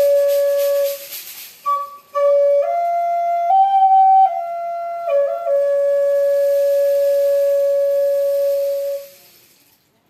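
Native American flute playing a slow, breathy melody: short notes stepping up and back down, ending on a long held low note that fades out near the end.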